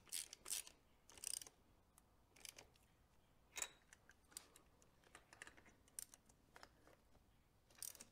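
Faint, scattered clicks of a ratchet and 5/8" spark plug socket tightening new spark plugs into the cylinder heads, irregularly spaced about a second apart with a few short runs.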